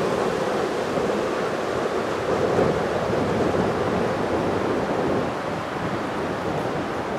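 Wind blowing across the microphone, a steady rushing noise that swells a little about two and a half seconds in.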